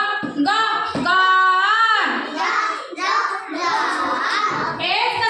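Young children singing together in a sing-song phonics chant, with a woman's voice among them.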